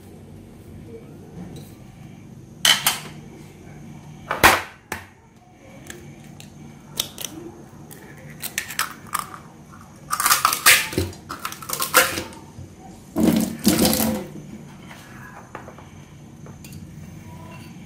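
Eggs being cracked against a hard edge for separating: a few sharp knocks of shell, the loudest about four and a half seconds in, with clusters of clicks and handling noises between.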